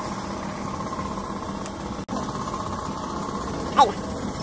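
A machine running steadily with an even hum, broken for an instant about two seconds in. A short, loud sound falling in pitch comes near the end.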